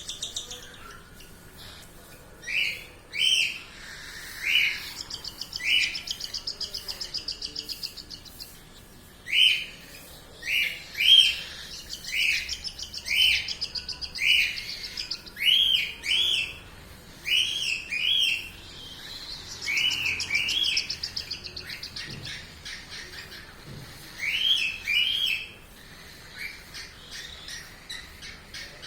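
Birds chirping: loud short chirps repeated every half-second to a second, over stretches of a fast, higher buzzing trill that comes and goes.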